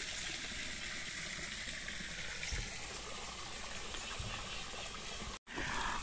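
Water falling from a raised pipe into a small pond, a steady splashing rush. It drops out for an instant near the end.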